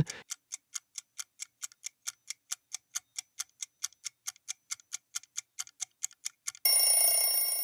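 Countdown-timer sound effect: fast clock ticking at about five ticks a second. Near the end it gives way to a louder ringing alert tone that slowly fades, marking that the time is up.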